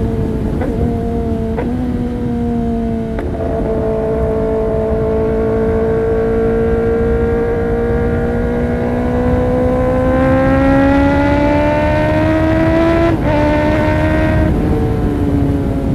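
Kawasaki ZX-10R inline-four engine running through an Arrow Pro-Race exhaust. The note drops about three seconds in, then climbs slowly over several seconds. It steps back down in two quick breaks near the end.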